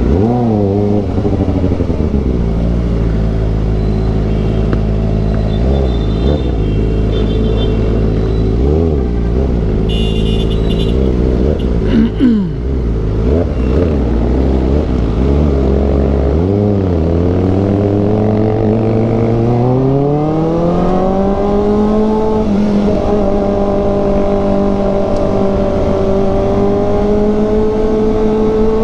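Kawasaki ZX-4RR's 399 cc inline-four engine under way, its revs dipping and rising several times in the first half. There is a sharp click about twelve seconds in. The revs then climb smoothly, hold steady, and start to rise again near the end.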